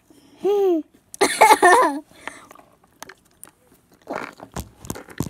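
Children's wordless vocal sounds: a short call that dips and rises in pitch about half a second in, then a louder, higher burst of voice, close to laughter, about a second later. A few soft rustles near the end.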